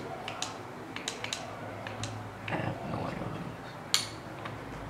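Small plastic clicks and knocks from hands handling a camera flash unit, with one sharp click about four seconds in. A brief low, rough sound comes near the middle.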